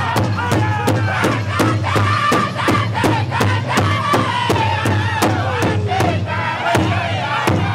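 Powwow drum group singing loudly in unison, high-pitched lines that fall in pitch, while striking a large hide-covered powwow drum together with steady beats, about four a second.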